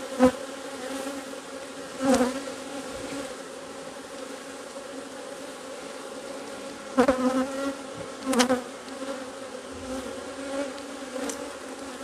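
A steady hum of many honey bees flying around an open beehive, from a colony stirred up by its frames being pulled. A few short knocks, from the wooden hive frames being handled, stand out above the buzzing.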